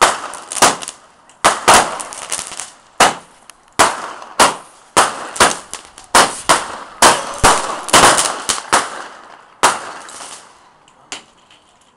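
A firework cake (square barrage) firing a rapid run of shots, about two a second, each a sharp bang trailed by a brief hiss and crackle. The volley stops about ten seconds in, with a couple of faint pops after.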